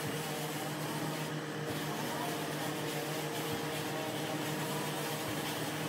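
Steady machine hum, a constant low drone with a faint hiss over it.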